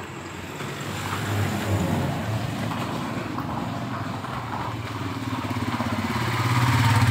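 Motorcycle engine running and drawing nearer, growing louder toward the end, with a rapid even pulsing from its exhaust.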